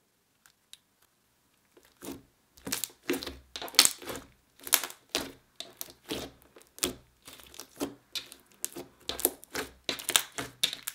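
Purple clear-glue slime, made opaque with lotion, squeezed and kneaded by hand, giving a run of sharp, sticky clicks and pops, two or three a second, starting about two seconds in.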